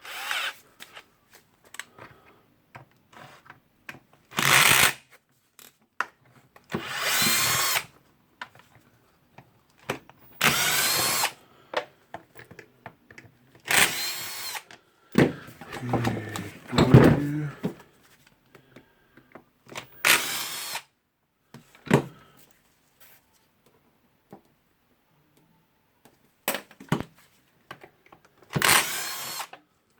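Power drill-driver backing out screws: about eight short runs of whirring, each lasting a second or so, with small clicks and handling noise in the gaps between them.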